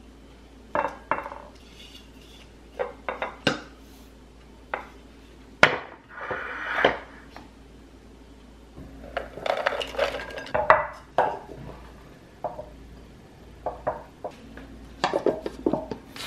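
Glass food-storage containers and their bamboo lids being handled on a stone countertop: irregular clinks and knocks of glass and wood, some in quick clusters.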